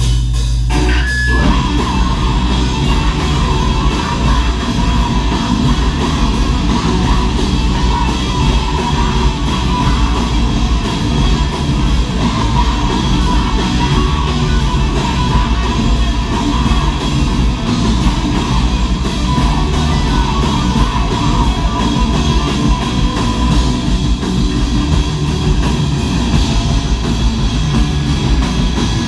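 Live heavy metal band playing loud: distorted electric guitars, bass guitar and a drum kit.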